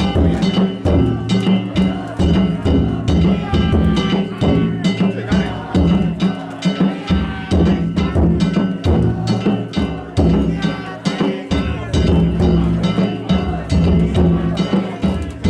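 Danjiri float's festival band: taiko drums and small hand gongs (kane) struck in a fast, even beat, the gongs ringing on between strokes, with voices calling over it.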